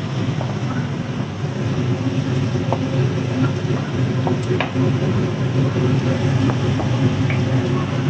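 Shallots frying in a wok, stirred with a wooden spatula: a sizzle with scattered light taps and scrapes of the spatula against the pan, over a loud, steady low mechanical hum.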